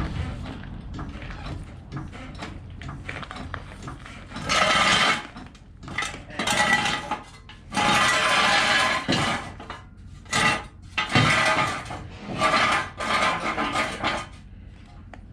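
Metal hand tools clanking and rattling against each other in a run of short, slightly ringing bursts that begin about four seconds in, after a few seconds of softer shuffling.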